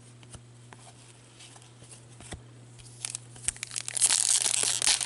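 A foil trading card pack being torn open and crinkled by hand, loud and dense from about four seconds in. Before that there are a few small clicks and crackles from cards and wrapper being handled.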